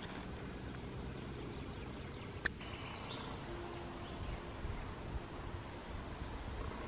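Faint outdoor ambience: a low steady background hiss with a single sharp click about two and a half seconds in.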